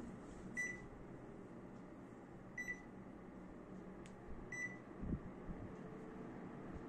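Panasonic split air conditioner's indoor unit beeping three times, about two seconds apart, as it takes fan-speed commands from the remote, over the faint steady hiss of its fan. A soft low bump about five seconds in.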